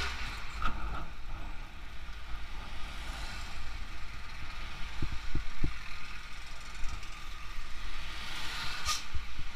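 Motorcycle riding noise: a steady rumble of engine and wind while passing close beside lines of stopped trucks in a traffic jam. A few low thumps come about halfway, and a short hiss near the end.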